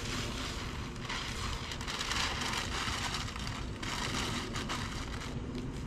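Masking paper and tape being peeled off a truck topper and crumpled into a wad: a crinkling, tearing paper rustle that comes in surges, over a low steady rumble.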